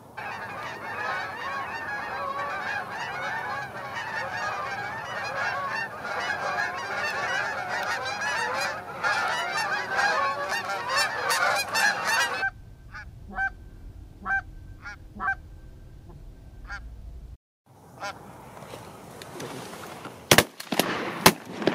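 A flock of Canada geese honking, many calls overlapping in a dense chorus; after a cut, a few separate single honks. Two sharp cracks come near the end.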